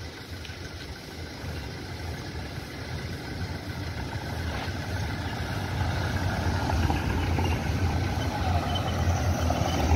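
A convoy of cars and SUVs driving up a paved road, engine and tyre noise growing louder over the first several seconds as they approach, then holding steady.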